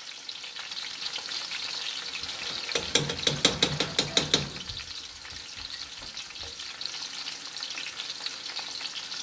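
Food sizzling steadily in hot oil in a cooking pot. About three seconds in comes a louder stretch of a second and a half, with sharp knocks over a stronger sizzle, as the pot is stirred or something is added.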